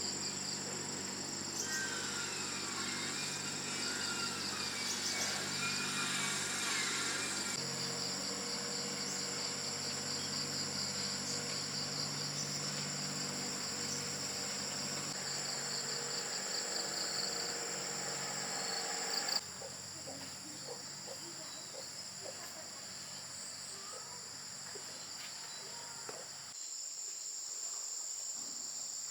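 A chorus of insects trilling steadily in high pulsing tones, with some whistling calls in the first several seconds; the background changes abruptly a few times.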